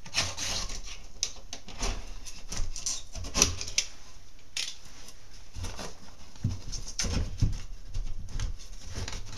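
Utility knife slicing through drywall along a scored and snapped line, cutting the paper backing to free the piece: a run of irregular, scratchy cutting strokes. A few dull knocks come about two-thirds of the way through as the loosened drywall piece is worked free.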